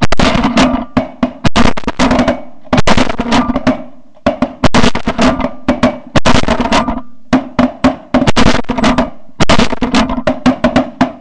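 A rapid, ragged volley of shotgun shots from several hunters firing into a flock of snow geese. The shots are loud and come in quick clusters, several a second at times.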